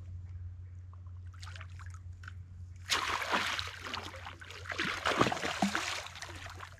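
A hooked gar thrashing at the water's surface, splashing hard and in uneven bursts for about three and a half seconds, starting about three seconds in.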